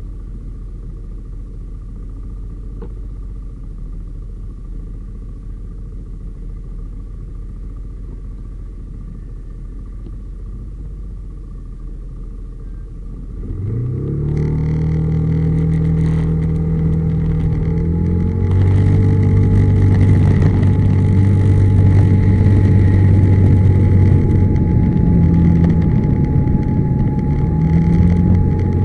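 Yamaha SMAX single-cylinder scooter idling, then about 14 seconds in pulling away and accelerating with a rising engine note, rising again near 18 seconds and settling into a steady drone at cruising speed.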